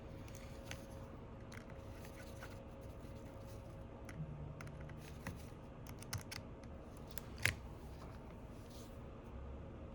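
Small clicks and ticks of a precision screwdriver and tiny screws being worked into an iPhone 12's internal bracket, with one sharper click about seven and a half seconds in, over a faint steady hum.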